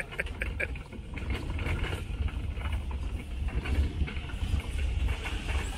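Pickup truck driving slowly down a steep dirt track, heard from its open bed: a deep steady rumble, with a run of clicks and rattles in the first couple of seconds.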